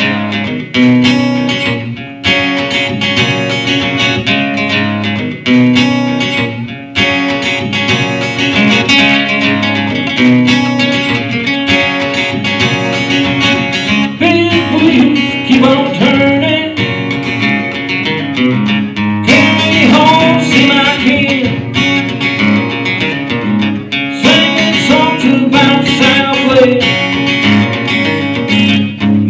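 Live acoustic guitar strummed in a steady rhythm, with a man singing joining in about halfway through.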